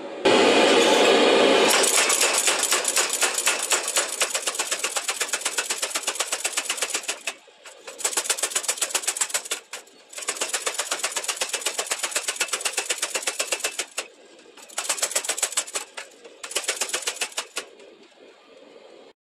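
Power hammer pounding a hot billet of forge-welded motorcycle chain: rapid runs of blows, several a second, broken by short pauses. This is the hammer consolidating the chain into solid Damascus steel.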